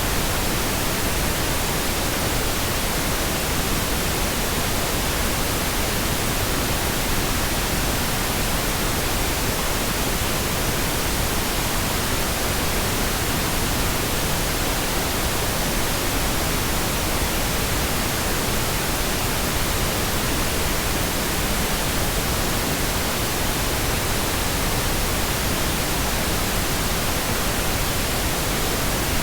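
Steady synthetic pink noise: an even, unchanging hiss across the whole range.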